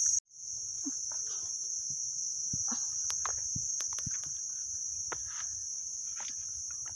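A steady high-pitched drone of a forest insect chorus, dropping out for a moment just after the start and then resuming. Faint scattered ticks and knocks sound underneath.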